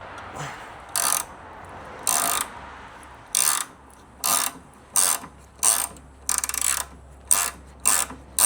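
Hand ratchet wrench clicking in repeated strokes, about ten, coming quicker toward the end, as it works a nut on a car's anti-roll bar drop link.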